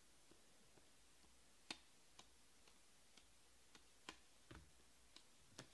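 Faint, irregular clicks of Panini Prizm baseball cards being flicked and slid from one stack to another in the hands, about a dozen ticks with the sharpest about two seconds in.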